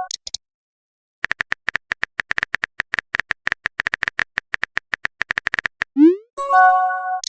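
Chat-app sound effects: a run of rapid keyboard-typing clicks for several seconds. Then a rising whoosh as a message is sent, followed by a short chime of a few held tones as the next message arrives.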